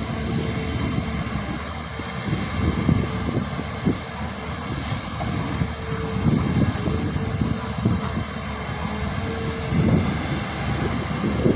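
Hyundai hydraulic excavator's diesel engine running as the boom and bucket work, an uneven low rumble with a faint steady tone that comes and goes.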